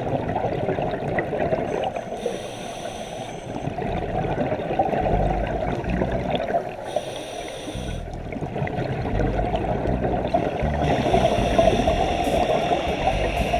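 Underwater sound of a scuba diver's exhaled bubbles gurgling up from the regulator, in surges every few seconds.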